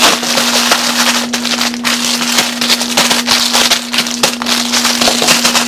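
Plastic snack and noodle packets crinkling and rustling as they are handled and packed, with many quick crackles and a steady low hum underneath.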